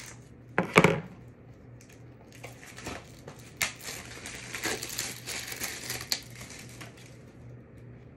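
A plastic DVD case being opened: two sharp clicks about a second in, then several seconds of crinkling and crackling plastic as the case and its wrapping are handled.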